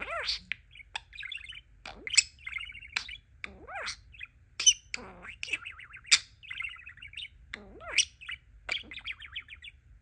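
Male budgerigar warbling and chattering: fast trilled phrases mixed with sharp clicks, chirps and swooping whistles.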